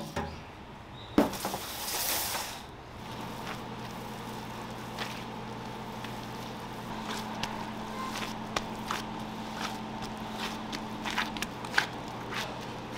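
Gloved hands pressing and patting a large mound of raw ground pork mixture, with soft squishes and scattered small clicks, over a steady electrical hum. A sharp knock and a second or so of scraping noise come about a second in.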